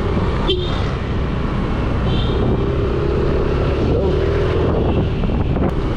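Riding noise from a Yamaha Mio Aerox 155 scooter on the move: a steady rush of wind over the microphone with the engine running underneath. A humming engine note comes up through the middle and wavers slightly.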